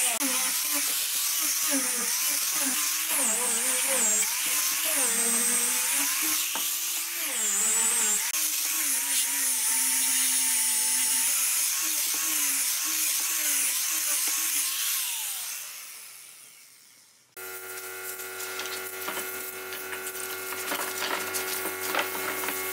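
Handheld electric grinder with a sanding disc sanding pine boards, its motor whine wandering up and down in pitch as it is pressed into the wood, then winding down about fifteen seconds in. After an abrupt change, light knocks of wood pieces being handled over a steady hum.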